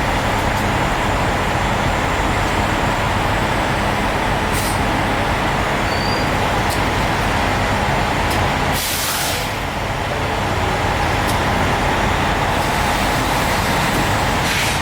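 Semi-truck's diesel engine idling steadily, with a short burst of hiss about nine seconds in.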